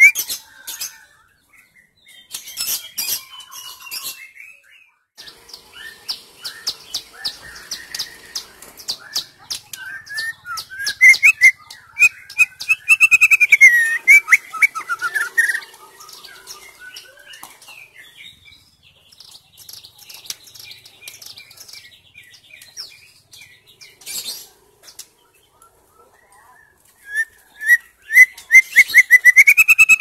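White-rumped shama singing in full song: loud, varied whistled phrases that glide up and down, mixed with rapid chattering trills and clicks. The song comes in bursts separated by short pauses.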